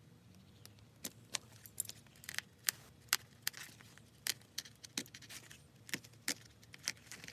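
Irregular sharp clicks from hand tools at work on a leather backpack, about two or three a second, starting about a second in.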